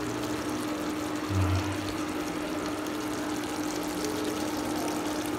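Chicken curry sizzling and bubbling in a pot, a steady hiss with a steady low hum under it.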